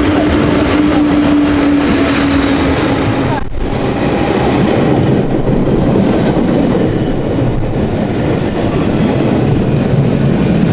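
Train running along the track: a continuous loud rumble with a steady whine for the first three seconds or so. There is a brief break about three and a half seconds in, and then the rumble carries on.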